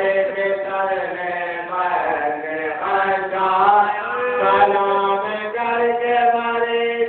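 A solo voice chanting a recitation in long held notes that slide between pitches, over a steady low tone.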